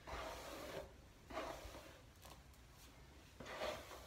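Hairbrush dragged through long hair in about four separate strokes, each a soft rustle under a second long. The hair has just been taken out of braids and not yet brushed.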